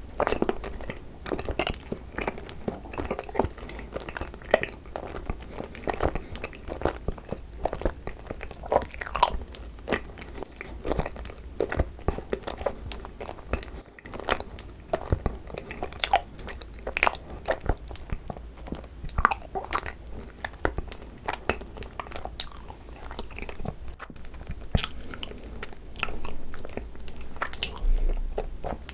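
Close-miked chewing and biting of cream-cheese-filled Korean rice cakes: a run of irregular mouth clicks and soft crunches with no talking.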